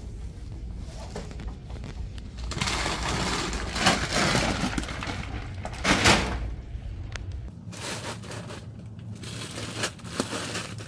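Large plastic dog-food bags crinkling and rustling as they are dragged and lifted off a shelf, with two heavier thumps of a bag landing, about halfway through and again a couple of seconds later.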